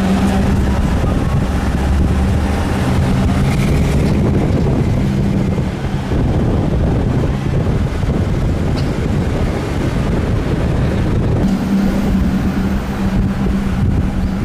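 Car on the move: a low engine hum under heavy wind buffeting the microphone. The hum fades around the middle and comes back near the end.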